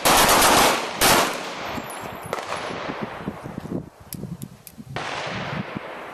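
Handgun shots from several shooters firing one round each, staggered rather than together: two loud shots in the first second or so, then further single shots about two and five seconds in, each echoing away.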